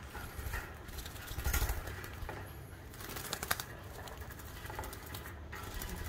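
Faint rustling and light clicks of a baby sun conure fluttering its wings while it is hand-fed formula from a syringe and feeding tube, over a low background hum.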